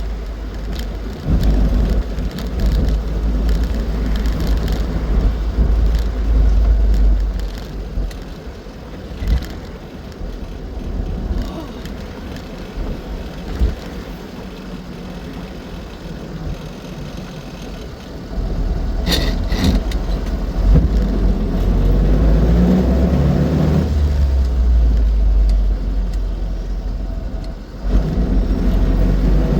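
Austin Seven's small four-cylinder side-valve engine running on the move, its note changing in pitch several times, over heavy low rumble from wind and road. A brief high sharp sound about two-thirds of the way through.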